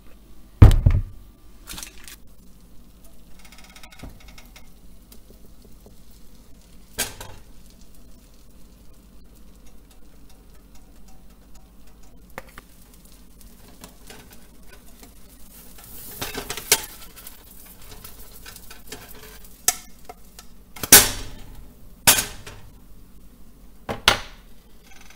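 Kitchenware clatter: a mixing bowl, utensils and a frying pan knocking and clinking, with a loud knock about a second in and several more later on. Faint sizzling of pancake batter in the pan fills the gaps between them.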